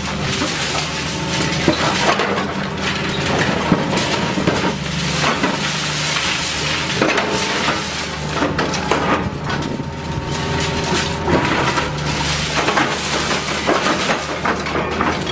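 Hydraulic concrete pulverizer on an excavator crushing concrete: irregular cracks and crunches of breaking concrete over the steady hum of the machine's engine.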